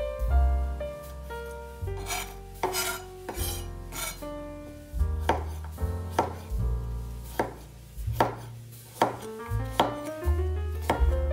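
Chef's knife chopping a carrot into slices on a bamboo cutting board: a dozen or so crisp knife strikes against the board from about two seconds in, roughly one every two-thirds of a second, over gentle piano background music.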